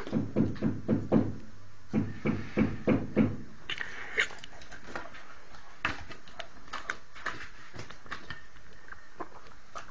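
Dog chewing food at a steady rhythm of about three chews a second, then scattered small clicks of fingers and food against a plate.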